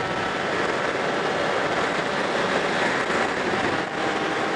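Wind rushing over a helmet-mounted camera on a motorbike cruising at steady speed, with a faint steady engine tone beneath the wind noise. The wind eases briefly near the end.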